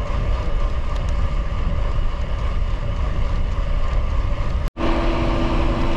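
Wind buffeting the microphone of a bicycle rider at speed, a steady heavy rumble. About three-quarters of the way through the sound cuts out for an instant, and after it a steady low hum joins the rumble.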